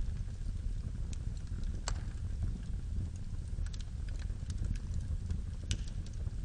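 Wood fire burning in a fireplace: a steady low rumble of flame with scattered sharp crackles and pops of the burning firewood, one louder pop about two seconds in.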